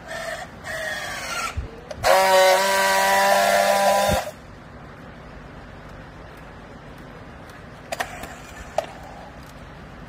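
Handheld battery-powered strapping tool on a plastic baling strap: its motor whines in two short rising bursts as it tensions the strap, then runs a loud, steady buzz for about two seconds as it friction-welds the joint. Two light clicks follow a few seconds later.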